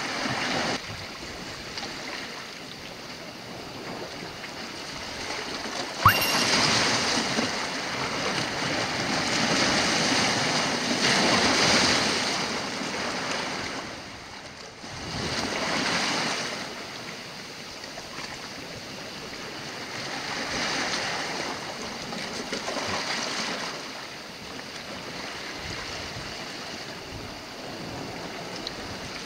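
Sea waves washing onto a rocky shore, the surf swelling and fading every few seconds. A single sharp click about six seconds in.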